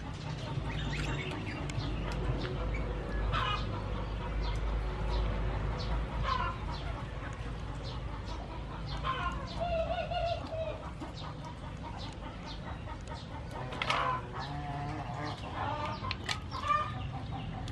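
Chickens clucking every few seconds, over light clicks of green mussel shells being handled and pried open in a basin of water.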